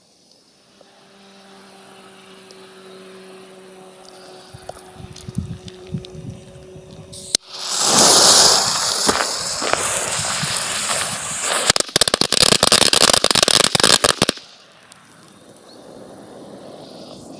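Footsteps crunching on gravel, then about seven seconds in a loud hiss from a jet torch lighter lighting the fuse for about four seconds. About twelve seconds in, a Black Cat Super Mitraillette firecracker pack goes off: a rapid machine-gun string of sharp bangs lasting about two and a half seconds.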